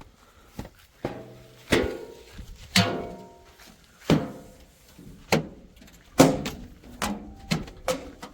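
Irregular series of hard knocks, about one a second, each followed by a brief ringing tone.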